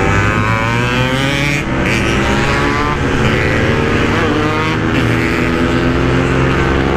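Yamaha RX-King two-stroke single-cylinder engine running under way, its pitch sinking and rising again with throttle and gear changes.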